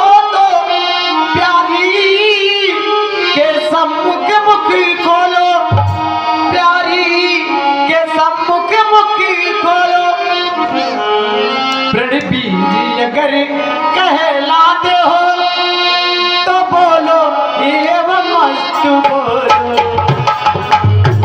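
A voice singing a melodic line with tabla accompaniment. The deep tabla strokes come in about six seconds in and return near the end.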